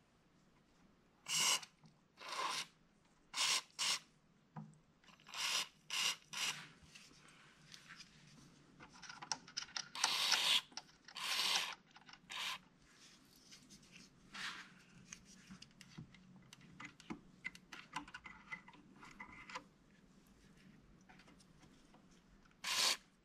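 Irregular short scraping and rubbing noises from hands working a wire inside an amplifier chassis, with a longer scrape about ten seconds in.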